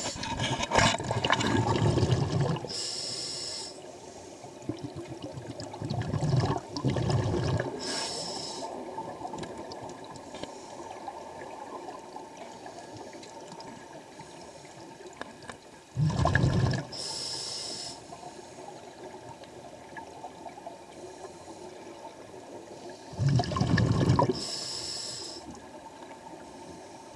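Scuba diver breathing through a regulator underwater: a loud bubbling rush of exhaled air, then a shorter hiss of inhalation, about four breaths several seconds apart.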